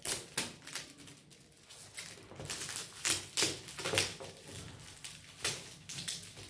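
Shiny metallic gift-wrap paper crinkling and tearing as it is pulled off a cardboard box, in an irregular run of short crackles and rustles.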